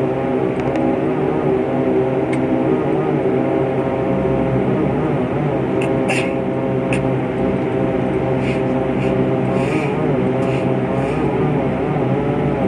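Propeller airplane engines running at a steady pitch: a continuous drone made of several steady tones, with a few short faint clicks in the middle.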